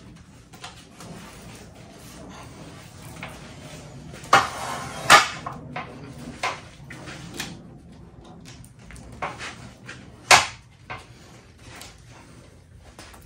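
Loose chainsaw chain being handled and wound onto a spool, its metal links clicking and rattling, with a few sharper knocks around 4, 5 and 10 seconds in.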